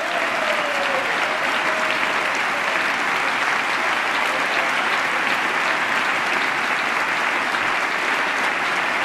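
Large audience applauding: a dense, steady wash of clapping that holds an even level throughout.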